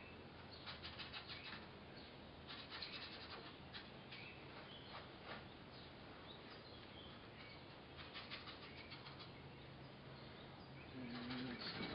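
Faint scratchy strokes of an oil paintbrush mixing and laying on paint, in a few short runs, with a few faint bird chirps in the background.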